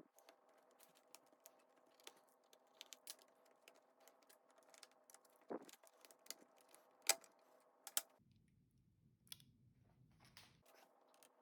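Light scattered clicks and taps of small tools and laptop parts being handled during disassembly, with two sharper clicks about seven and eight seconds in, over a faint steady hum.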